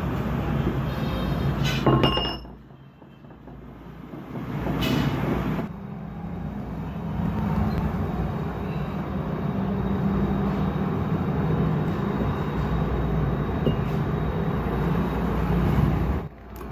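Steady electric hum of a blacksmith forge's air blower running, with a couple of sharp metal clinks in the first few seconds. The hum drops away for a few seconds about two seconds in.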